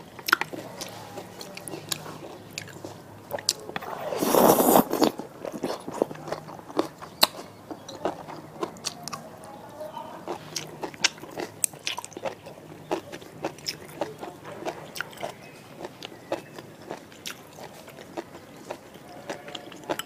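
Close-miked eating sounds: biting, crunching and chewing on spicy noodles and vegetables, with many small sharp clicks. There is one loud slurp lasting about a second, around four seconds in.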